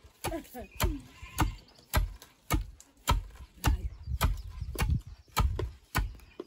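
Two long wooden pestles pounding maize in a mortar in turn: a steady run of dull thuds, just under two strokes a second. A voice is heard briefly near the start.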